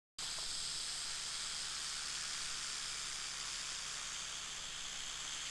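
Western diamondback rattlesnake rattling: a steady, unbroken high buzz that starts suddenly.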